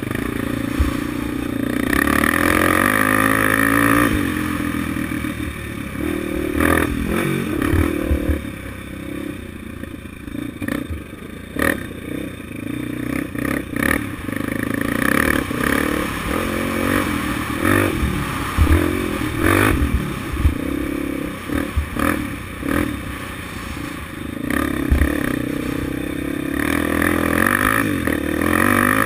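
Honda 400EX quad's single-cylinder four-stroke engine, bored to 440 with hot cams and a Pro Circuit T-4 muffler, revving up hard and backing off again and again under riding load. Short knocks and rattles come through over the bumps.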